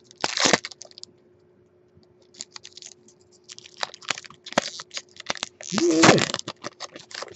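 Magic: The Gathering trading cards being handled and sorted on a desk: an irregular run of sharp card clicks, taps and short rustles as cards are flicked and dropped onto piles, with a longer, louder rustle about six seconds in.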